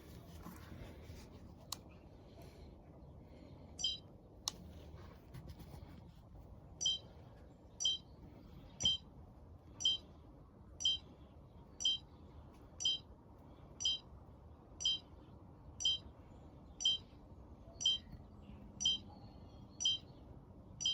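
Short high-pitched chirp repeating very regularly about once a second from about seven seconds in, with a single chirp a few seconds earlier.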